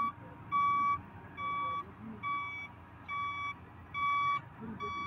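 Truck's reversing alarm beeping: short beeps of one high tone, evenly spaced, a little more than one a second, over a faint low vehicle rumble.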